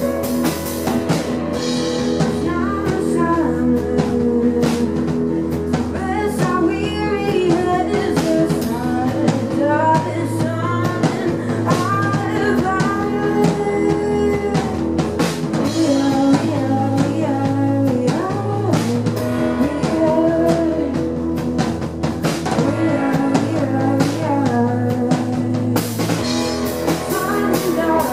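Live pop-rock song: a woman sings over keyboard and drums, with sustained low bass notes underneath. Her voice comes in about two seconds in.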